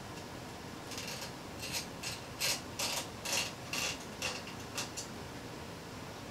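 A run of about a dozen short, irregular plastic clicks and rattles over a few seconds. They come from hands working the Raptor 2 3D printer's data cable and its connector at the extruder carriage.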